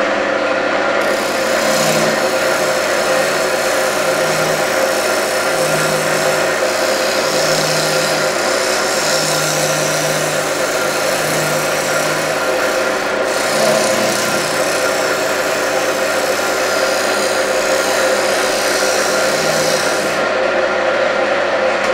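Wood lathe running while a hand-held turning tool cuts a spinning camphor laurel bowl blank, the shavings coming off as a steady scraping hiss over the motor's hum. The cutting starts about a second in, pauses briefly partway through and stops near the end.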